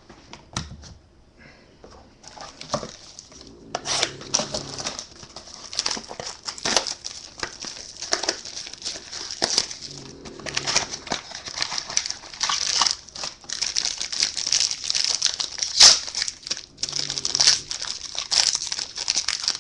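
A trading-card pack wrapper being torn open and crinkled by hand, a dense run of crackling and sharp snaps that starts a couple of seconds in.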